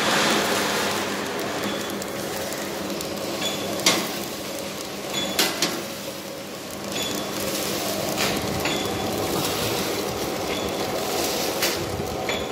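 Detergent powder pouch packing machine running: a steady mechanical hum with a short high tone repeating about every second or so and a few sharp metallic clacks.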